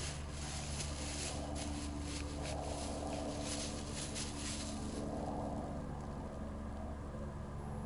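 Plastic bag crinkling and rustling as a loaf of bread is handled. The crackling stops about five seconds in, over a steady low hum.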